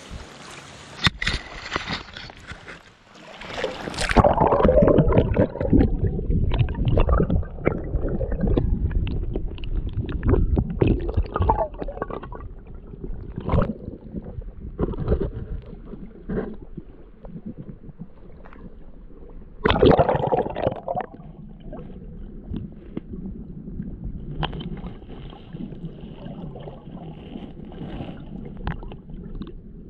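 Shallow creek water splashing and gurgling around a camera dipped into the stream, with irregular knocks. Heavy splashing a few seconds in, another burst about twenty seconds in, then a quieter, muffled wash while the camera is under water.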